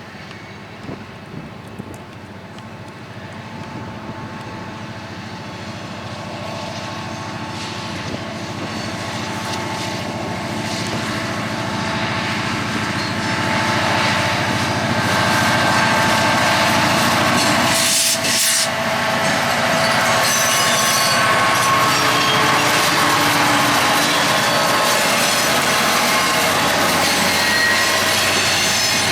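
CPKC local freight train drawing closer, its rumble growing louder over about fourteen seconds and then holding steady and loud as it rolls by, with faint thin squealing tones from the wheels on the rails.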